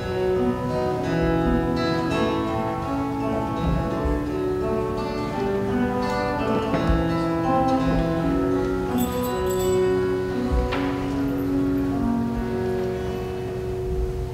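Instrumental music, mostly steady held notes changing every second or so, with no singing.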